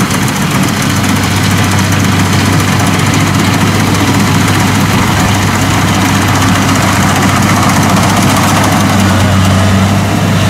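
Kubota rice combine harvester's engine running steadily under load while its cutting header and threshing drum turn, cutting standing rice. The low, steady drone grows slightly louder as the machine comes closer.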